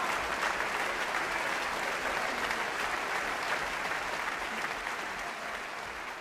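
A large crowd applauding after a performance, the dense clapping gradually fading out.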